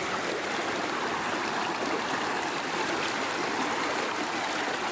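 Shallow stream running steadily, an even rush of flowing water.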